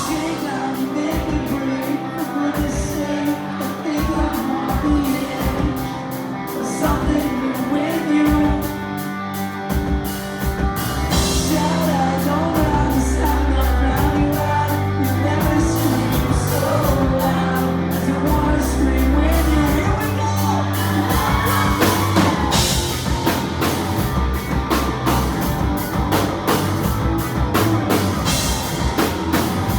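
Live rock band music with singing, with a regular beat; the bass end gets heavier about twelve seconds in.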